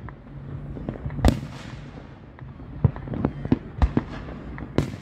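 Fireworks going off: a run of sharp bangs and pops at irregular intervals, the loudest about a second in and a quick cluster of them past the middle, over a low steady hum.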